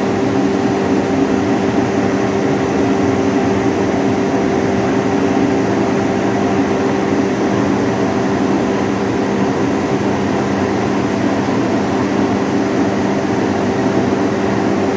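A 55 kW hammer mill and its blowers running steadily: a loud, even drone with a few steady humming tones and no change.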